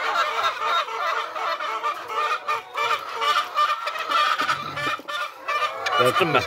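Many laying hens clucking and squawking at once, a dense, continuous chatter of overlapping calls.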